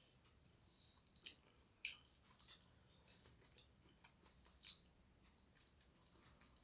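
Faint sounds of a person eating with his fingers from a glass plate: chewing, with a few short soft clicks and smacks scattered through.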